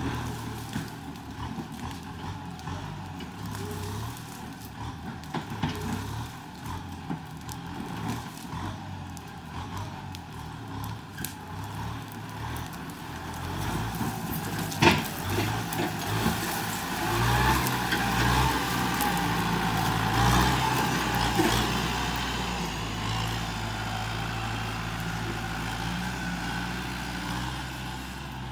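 Kubota M6240 SUH tractor's four-cylinder turbo diesel running under load as it pulls a disc harrow through dry ground. The engine note grows louder for several seconds past the middle, then eases, with a single sharp clack about halfway through.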